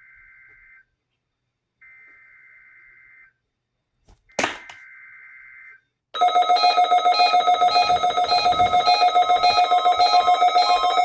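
NOAA Weather Radio SAME data bursts: the end of one, then two more buzzy bursts about a second and a half long with short gaps between, the last opened by a loud click. About six seconds in, a much louder alarm starts, pulsing rapidly with several tones: a weather radio receiver alerting, set off by the test signal.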